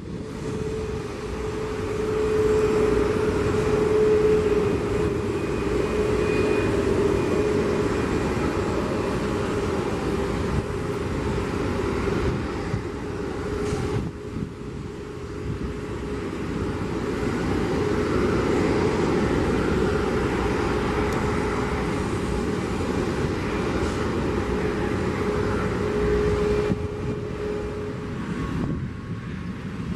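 Turboprop engines of an Embraer EMB-110 Bandeirante taxiing, with a steady whine. About halfway through the sound cuts to the CFM LEAP-1B jet engines of a Boeing 737 MAX on the runway, a steady whine that grows louder a few seconds after the cut.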